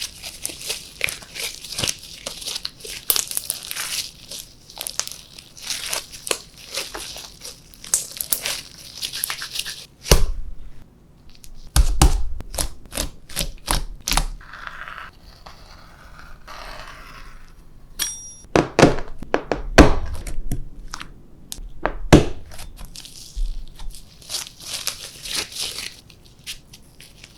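Slime being kneaded, stretched and pressed by hand, giving dense sticky crackling and clicking, with a few louder thuds and slaps in the middle as it is pressed or slapped down.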